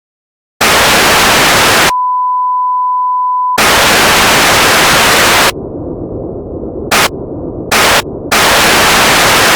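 Loud bursts of TV-style static hiss cutting in and out, alternating with a steady single-pitch beep tone, like a broadcast signal breaking up into an off-air test tone. In the middle the static drops to a quieter, thinner hiss broken by two short loud bursts before the full static returns.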